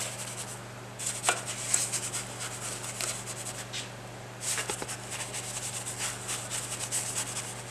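Paintbrush scrubbing soapy leak-test solution over the cast-iron deck of a Ford Model A engine block: quick, wet, scratchy brush strokes with two short pauses.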